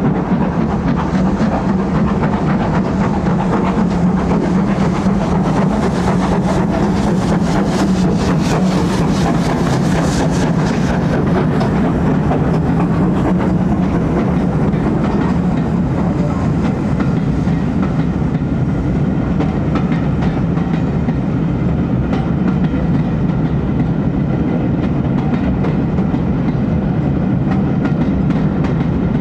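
A train running on the track, a steady loud rumble, with a quick run of clicks between about six and eleven seconds in.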